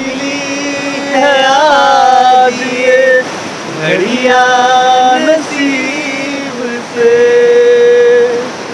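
Music: a song with a sung melody of long held notes and slides between them, over the steady rush of a fast hill river.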